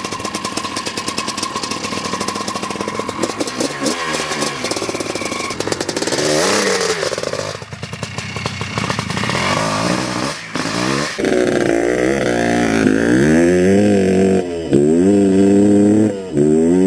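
Dirt bike engine running and revving hard. The first part is a rattly, wavering note; then, about two-thirds of the way in, it gives way to a cleaner note that climbs in pitch, drops and climbs again several times, as when accelerating through the gears.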